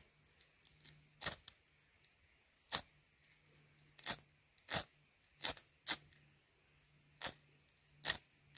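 A hacksaw-blade striker scraped hard down a ferrocerium rod, making about ten short, sharp rasps at irregular intervals, each throwing sparks onto magnesium shavings and pine-needle tinder that fail to catch.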